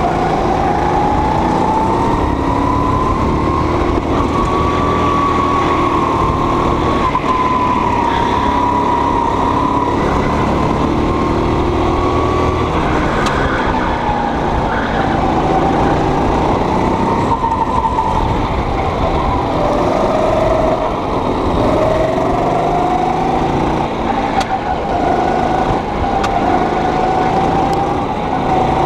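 Go-kart engine running hard around a track, heard from the driver's seat, its pitch rising on the straights and dropping as the driver lifts off for corners, over a steady rushing noise.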